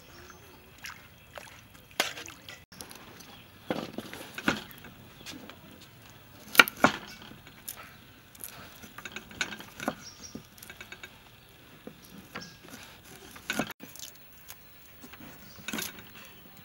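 Kitchen knife cutting limes on a thick wooden chopping board: irregular sharp knocks of the blade striking the wood, the loudest about six and a half seconds in.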